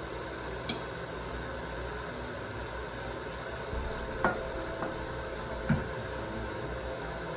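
Steady kitchen background hiss with a few light knocks as the cooking-oil bottle and other items are handled on the counter: a faint click near the start, a sharper clack about four seconds in and another about a second and a half later.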